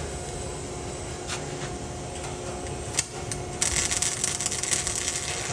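Welding arc crackling and hissing as an exhaust pipe is welded under a truck; it strikes up about two-thirds of the way in, after a single sharp click.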